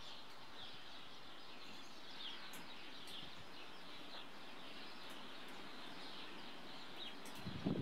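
Small birds chirping again and again in the background over a steady outdoor hiss, with a few faint ticks. Near the end comes a short, louder low rustle.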